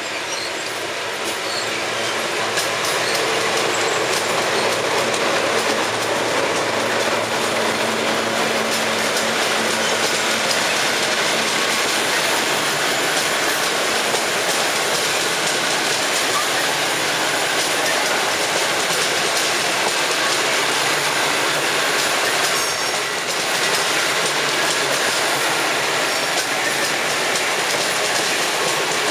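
PKP EU07 electric locomotive hauling a long rake of passenger coaches past: steady rolling noise of wheels on rail with clickety-clack over the rail joints, growing louder over the first couple of seconds as the locomotive passes.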